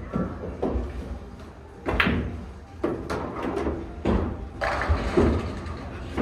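Pool balls clacking: a cue strike followed by several sharp clacks of balls hitting each other and the table over a few seconds, the loudest about two seconds in.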